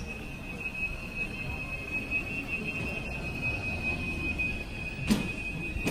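Airport concourse room tone: a low steady rumble of ventilation and distant activity with a thin, steady high-pitched whine over it, and a single sharp knock about five seconds in.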